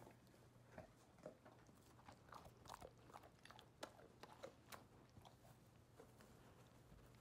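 Dogs, a husky and a Labrador, eating dry kibble: faint, irregular crisp crunches and clicks of chewing, busiest from about two to five seconds in.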